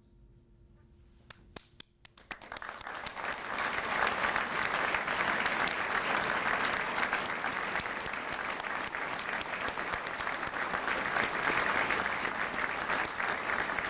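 Large indoor audience applauding: a few scattered claps about a second in, then the applause swells over the next two seconds and holds steady.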